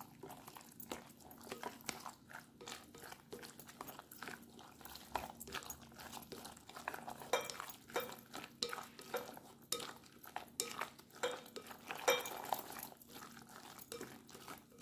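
Wooden chopsticks stirring chopped raw salmon mixture in a glass bowl, with many irregular clicks and taps as the sticks knock against the glass.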